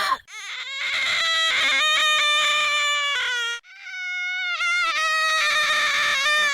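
Horror sound effect of a shrill, wavering scream held for about three seconds, breaking off, then a second long scream starting shortly after.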